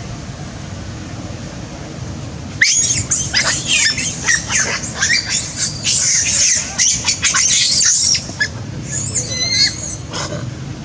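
Macaques screaming: a burst of shrill, high-pitched screams with quickly bending pitch starts about three seconds in and lasts about five seconds, followed by a few shorter squeals near the end.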